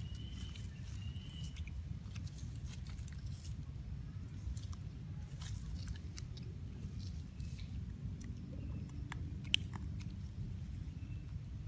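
Baby macaque chewing food: small scattered crunching clicks over a steady low rumble, with one sharper click about two thirds of the way through.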